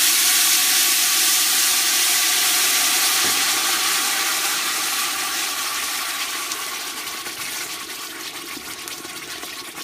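Blended chile purée for mole poblano sizzling and spattering as it hits hot oil in a large stainless-steel pot and is stirred with a wooden spoon: the frying step that seasons the sauce. A loud hiss that slowly dies down over the seconds.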